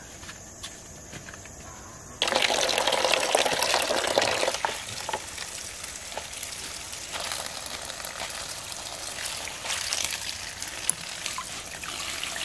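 Tap water running in a stream onto leafy greens in a plastic basin, splashing as a hand rinses the leaves. It starts suddenly about two seconds in, after a quieter opening, is loudest for the next couple of seconds, then settles to a steady splashing run.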